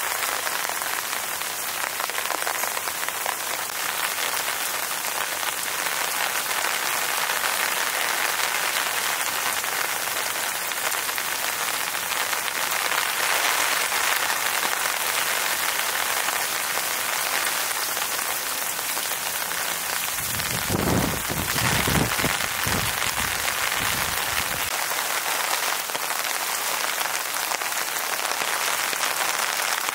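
Steady rain falling, an even, dense patter. About twenty seconds in, a low rumble rises under it for around four seconds and then stops.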